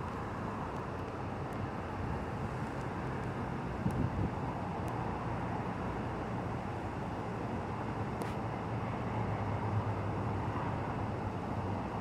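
Steady road traffic noise: an even low rumble and hiss with no distinct events.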